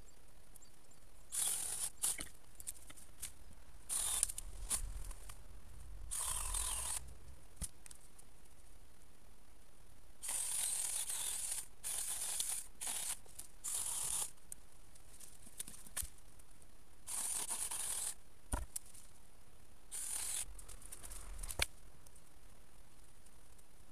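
Hazel shoots being cut back by hand at the base of a coppice stool: irregular short bursts of rasping and rustling, with a few sharp snaps.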